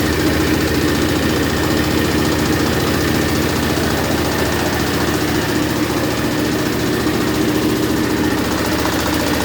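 Diesel engine running steadily with a fast, even firing beat, driving a mini rice milling machine.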